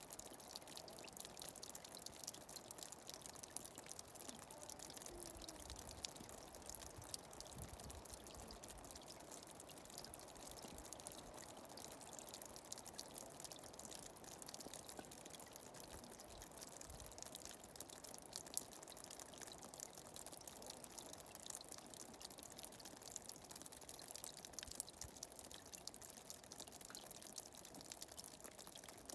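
Faint, steady water trickling and dripping, with a constant patter of tiny drips over a soft running-water hiss.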